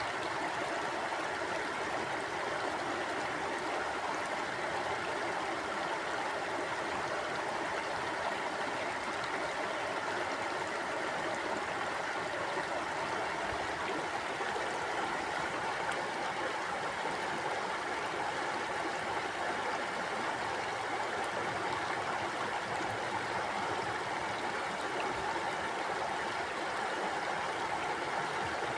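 River water flowing steadily over rocks, a constant rushing and burbling with no breaks.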